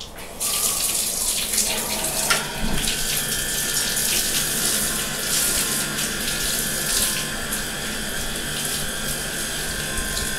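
Hand shower turned on about half a second in, water running steadily through long hair and splashing into a bathtub. A steady high whine joins about two seconds in.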